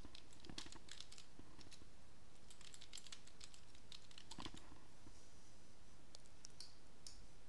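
Faint typing on a computer keyboard: irregular key clicks, entering a session title.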